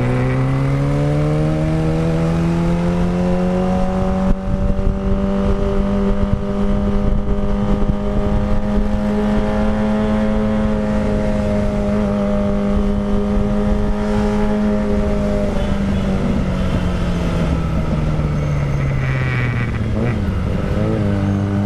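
2022 Kawasaki Ninja ZX-25R inline-four engine running through a Villan Pro 1 full-system aftermarket exhaust while riding. The engine note climbs over the first few seconds, holds steady for about ten seconds, then falls away and starts to rise again at the very end, with a steady rush of noise underneath.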